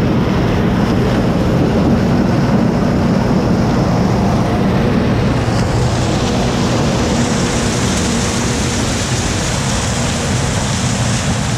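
John Deere 3350 tractor's diesel engine running steadily under load while it pulls a Zmaj 222 corn picker at work. A higher hiss joins the machine noise about six seconds in.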